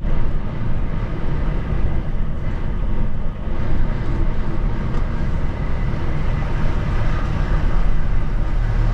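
Lorry's diesel engine running as the truck drives, heard from inside the cab: a steady low rumble with road noise.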